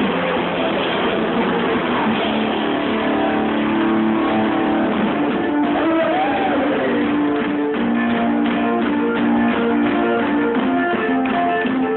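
A live band playing amplified music, with guitars prominent.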